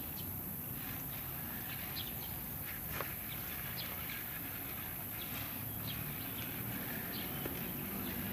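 Footsteps on a rubber running track, faint ticks about one or two a second, one a little louder about three seconds in, over a steady low background noise.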